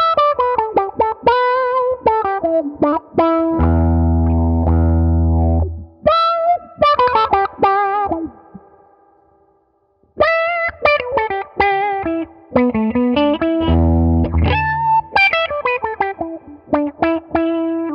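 Electric guitar played through an Electro-Harmonix Q-Tron Plus envelope filter: a mix of high and low picked notes and short runs, each note swept by the filter into a vowel-like auto-wah, with a short break about halfway through.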